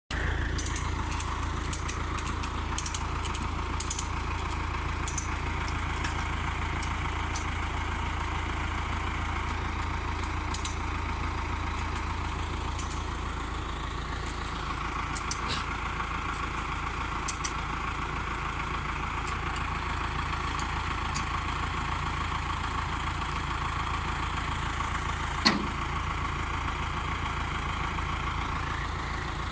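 A vehicle engine running steadily at a constant low hum, with scattered light clicks. About 25 seconds in comes one short, sharp sound that falls in pitch, the loudest moment.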